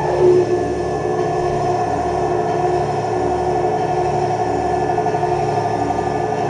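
Experimental electronic drone music: a dense, sustained hum of many held tones with a low, uneven throbbing underneath.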